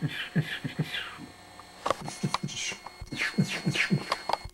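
A voice making rapid, unintelligible syllables, several a second, each falling in pitch, with a short pause about a second and a half in.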